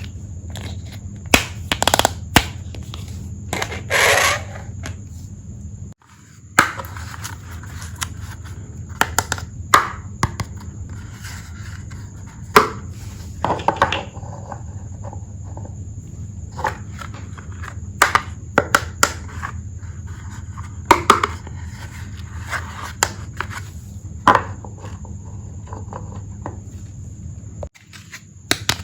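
Small plastic toy tea set pieces being handled, unpacked and set down: irregular light clicks and taps, with a brief rustle about four seconds in, over a steady low hum.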